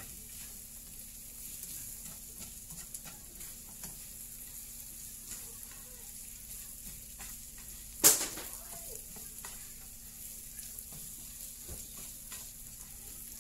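Prawns and sliced onion sizzling in oil in a frying pan, stirred with a spatula that clicks and scrapes against the pan. One loud sharp burst about eight seconds in.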